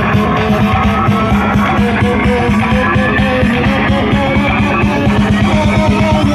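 Loud music with guitar over a fast, steady beat, played through a large outdoor sound system.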